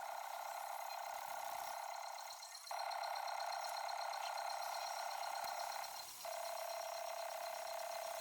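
A small electric motor running steadily in three long spells, with two short pauses about two and a half and six seconds in.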